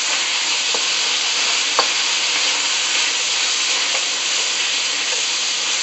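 Strips of sirloin beef sizzling steadily in a hot wok as they brown, with a few light knocks of the wooden spatula stirring them against the pan.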